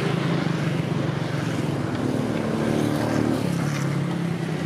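A motor engine running steadily with a low, even hum, its pitch dropping slightly about three and a half seconds in.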